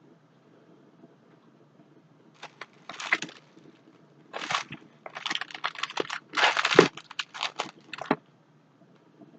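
Packaging being handled and unwrapped, crinkling and crackling in irregular bursts for several seconds, then stopping.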